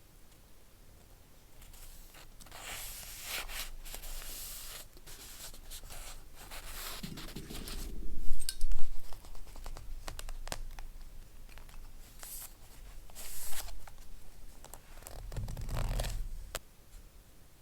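Paper being handled at close range for collage journaling: several stretches of rustling with a few sharp clicks. Low thumps come about halfway through, the loudest moment, and again near the end.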